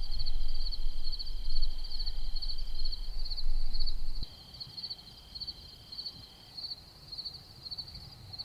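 Crickets chirping in a fast, steady, high-pitched pulsing trill, joined by a second steady high tone that stops and starts. A low rumble underneath is loudest early and cuts off about four seconds in.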